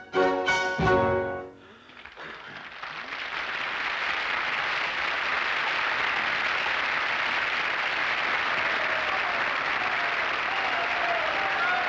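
The music ends on two loud closing chords within the first second and a half. Then audience applause swells up and carries on steadily.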